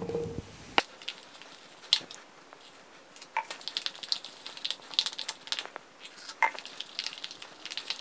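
Wooden spoon stirring thick gram-flour batter in a plastic bowl: short wet scrapes and taps of the spoon, sparse at first, then quick and continuous from about three seconds in as the flour and water are worked together.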